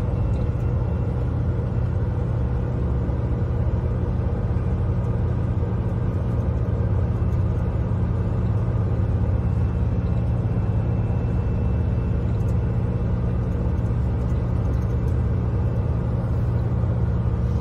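Steady low rumble of a vehicle on the move, heard from inside its cabin.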